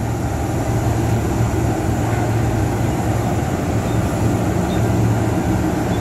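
CC206 diesel-electric locomotive standing and idling, a steady low engine hum with a noisy rumble over it.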